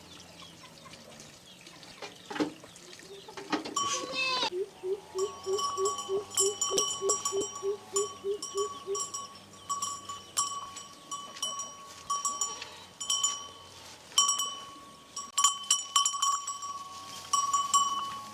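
Goats bleating, with a small metal neck bell clinking over and over. One long quavering bleat lasts from about four seconds in to about nine seconds in.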